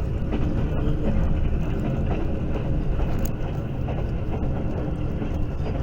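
Passenger train running along the track: a steady low rumble of wheels and carriages.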